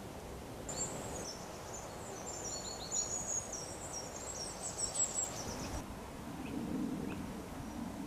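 A songbird singing a long run of high, quick chirps and short trills over outdoor background noise. About six seconds in, the birdsong stops and a low steady hum comes in.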